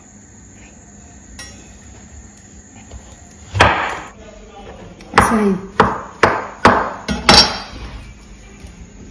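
Kitchen knife striking a wooden cutting board while ripe plantain is cut. There is one sharp knock about three and a half seconds in, then a quick run of about six knocks near the end.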